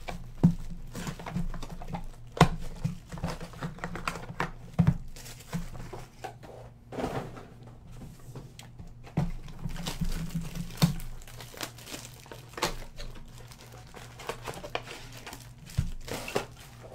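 Sports card boxes and foil card packs being handled on a table: irregular taps and clicks of cardboard boxes set down and stacked, with crinkling of pack wrappers.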